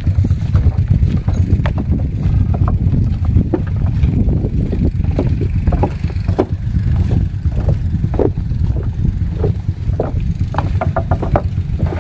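Footsteps knocking irregularly on loose wooden planks of a walkway over water, over a loud, steady low rumble.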